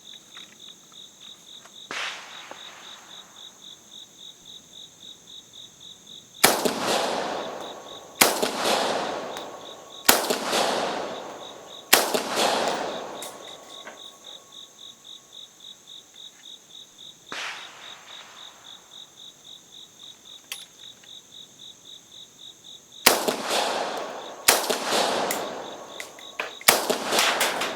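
AK-74 rifle (5.45×39 mm) fired in single shots at an irregular pace, about ten shots, with crickets chirping steadily throughout. Two of the shots, about two seconds in and past the middle, are noticeably weaker. The shooter takes such shots for soft loads, from powder in the old surplus ammunition breaking down over time.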